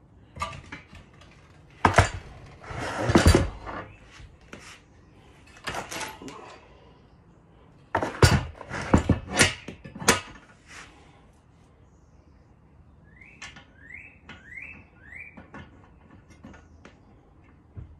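Steel parts of an articulating TV wall mount clanking and knocking together as the arm is handled and assembled, with the loudest clanks about two to three seconds in and again around eight to ten seconds in. Near the end, four short rising squeaks.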